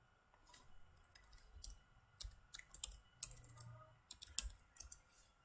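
Computer keyboard typing: a quick, irregular run of faint key clicks as a word is typed into a search bar.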